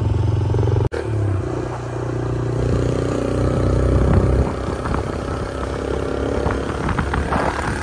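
A vehicle engine running steadily, with a brief cut-out about a second in before it runs on.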